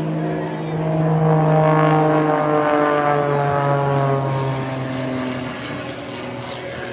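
Propeller-driven aerobatic biplane's engine passing by, loudest about a second in. Its drone drops slowly in pitch and fades as the aircraft moves away.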